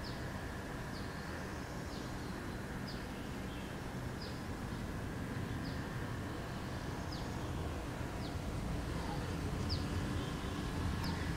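Outdoor ambience with a bird calling over and over in short, high, falling chirps about once a second, over steady low background noise.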